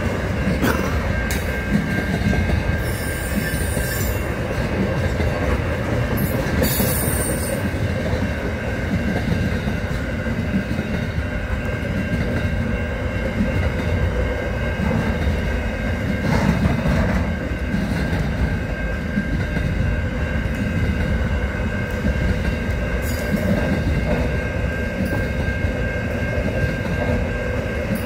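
Container wagons of a long freight train rolling past close by at speed: a steady heavy rumble of wheels on rail, with a constant high-pitched wheel squeal over it and a few brief hissing clatters.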